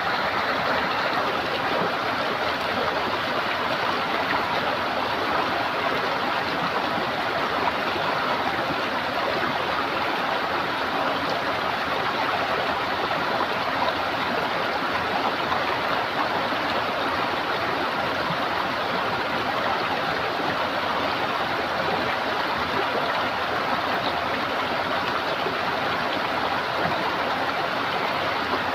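Running water gurgling steadily, an even rushing flow that holds without change.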